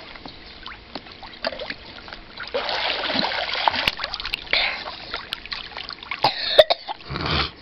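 Pool water splashing and trickling as a child surfaces and swims, with scattered small splashes and a short louder burst near the end.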